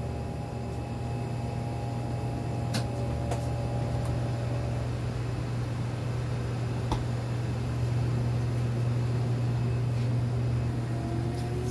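Steady low hum of a running motor or fan, with a higher steady tone that stops about five seconds in and a few faint clicks.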